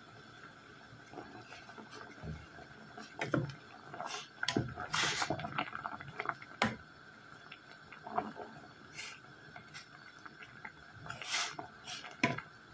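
Saucepan of water at a rolling boil, bubbling with irregular pops and splashes. Near the end a wooden spoon stirs it and knocks sharply once against the pan.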